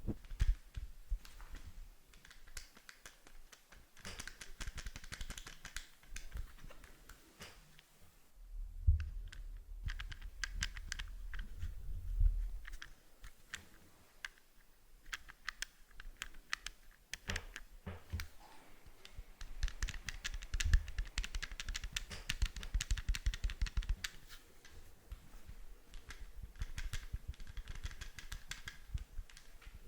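Buttons on an old microphone clicked repeatedly close to the mic, in quick runs of sharp clicks with short pauses between them. Low handling thumps come in now and then.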